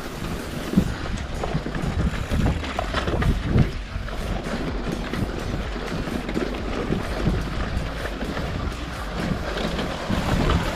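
Wind rushing over the microphone of a mountain bike rider's camera during a fast downhill run, with a few knocks and rattles from the bike over rough ground.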